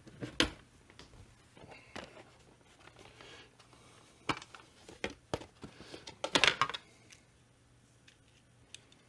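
Rummaging through small hardware in plastic parts boxes and cases: scattered sharp clicks and light rattling, with a louder burst of clatter a little after six seconds in.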